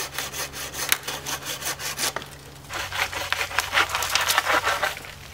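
Hand saw cutting through dead wood in quick back-and-forth strokes. The strokes break off about two seconds in and start again about half a second later.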